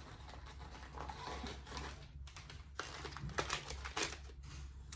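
Plastic grocery bags and packaging rustling and crinkling as items are rummaged out of a shopping bag, with scattered light clicks and knocks.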